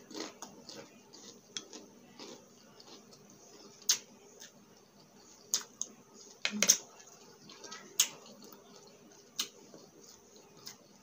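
Close-up chewing of crispy fried egg chicharon chips: sharp, separate crunches every second or two, the loudest cluster a little past the middle.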